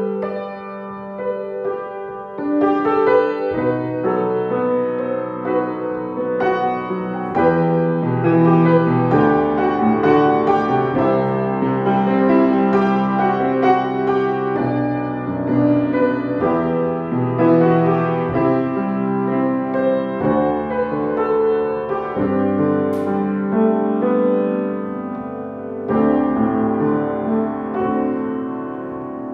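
Piano music.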